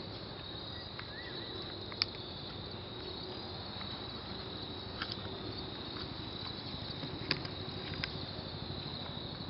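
A few light, sharp clicks of a gas-blowback airsoft submachine gun's parts knocking together as it is reassembled by hand, over a steady high chirring of insects.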